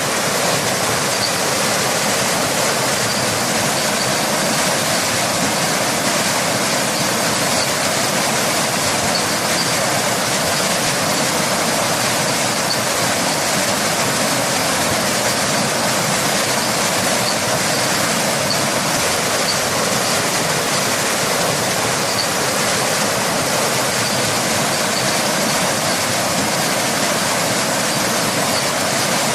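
Steady, unbroken rush of a waterfall mixed with rain, a loud even hiss of falling water with no change in level.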